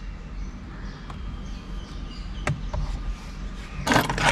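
A low, steady hum inside a parked car's cabin, with a single sharp click about two and a half seconds in and a short burst of rustling noise near the end.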